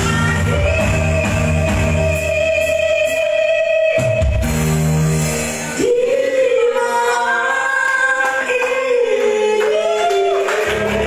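Female vocalist singing live through a microphone with electronic keyboard accompaniment, holding two long, high-pitched notes: the first from about half a second in to about four seconds, the second from about six seconds, wavering near the end. The low keyboard part drops out under the second note and returns near the end.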